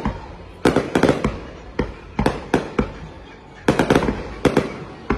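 Aerial firework shells bursting, in three rapid volleys of sharp bangs about a second and a half apart, each volley dying away before the next.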